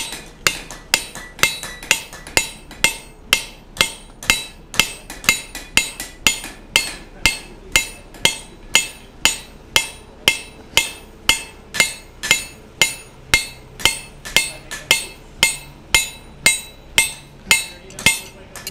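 Hand hammer striking a steel drift through the punched hole of a glowing bar of mild steel, in a steady even rhythm of a little over two ringing blows a second: the eye of a monkey tool being drifted open.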